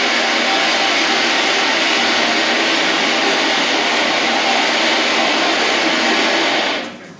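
Loud steady rushing noise from a film clip's soundtrack played over the hall's speakers, cutting off suddenly near the end.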